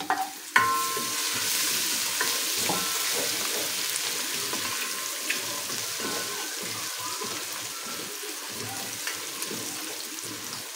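Chopped onion and ginger-garlic paste sizzling in hot oil with whole spices in an aluminium pot. The sizzle rises suddenly about half a second in as the onion goes in, then holds steady while a spatula stirs and scrapes against the pot.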